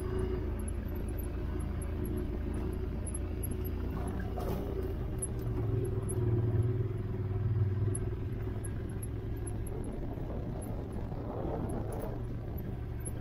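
Off-road vehicle engine running steadily while driving, a low drone that grows louder about six to eight seconds in.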